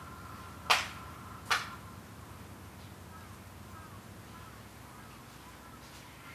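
Two sharp hand claps a little under a second apart, the paired claps of worship at a Shinto shrine, over steady wind.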